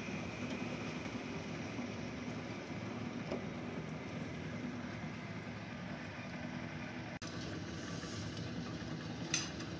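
Steady rushing noise of a lit gas stove burner under a steamer pot, with a low hum underneath. A short sharp clink of metal about nine seconds in.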